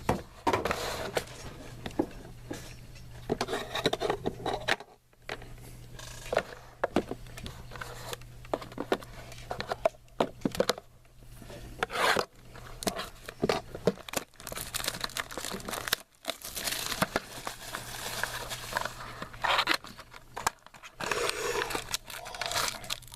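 Trading card packs being crinkled and torn open by hand: irregular rustling, tearing and small clicks of paper and foil, over a steady low electrical hum.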